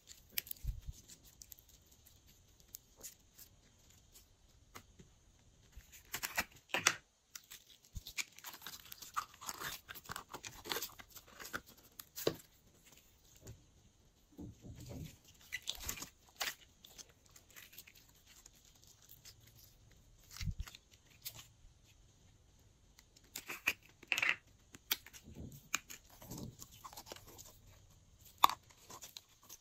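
Hands stretching, squeezing and folding slime: irregular sticky clicks and crackles as it pulls apart and presses together, coming in bursts with quieter stretches between.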